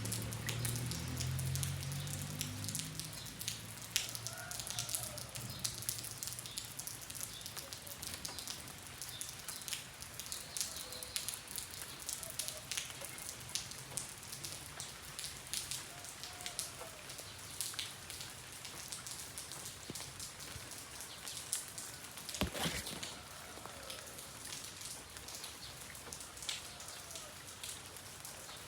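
Rain falling steadily: a constant hiss with many separate drop hits, one sharper hit about 22 seconds in. A low hum sits under it for the first few seconds.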